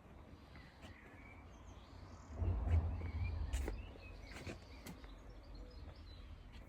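Outdoor ambience with small birds chirping faintly now and then, a few sharp clicks, and a brief low rumble about two and a half seconds in.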